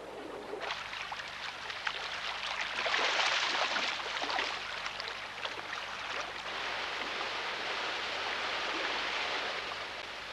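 River water rushing and splashing: a dense spatter of splashes in the first few seconds that settles into a steady rush of flowing water.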